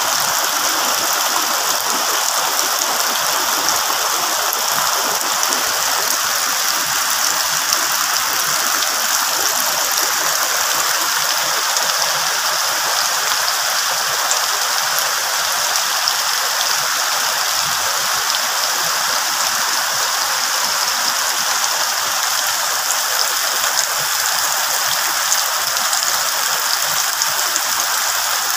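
Heavy rain falling steadily on leaves: a dense, even hiss with occasional sharper ticks of single drops.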